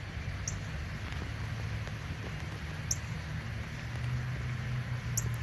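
Low, steady engine rumble with a hum that grows a little stronger about four seconds in, and a few faint high ticks.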